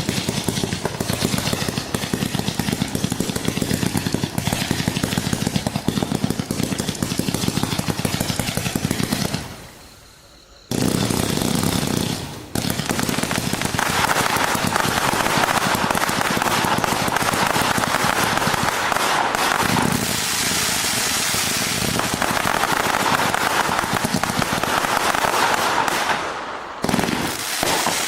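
Consumer firework cake (Sunwing "Laser Cats") firing a rapid stream of shots, with a brief lull about ten seconds in before it resumes, heavier in crackle.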